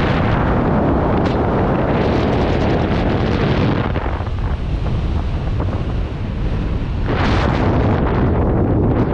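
Rushing air buffeting a skydiver's camera microphone: a loud, continuous wind roar with surges of brighter hiss about two seconds in and again around seven seconds.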